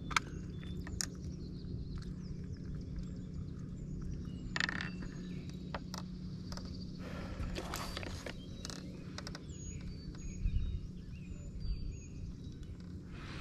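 Open-air ambience with a steady low hum, scattered light knocks and taps, and a few faint, high bird chirps about ten seconds in.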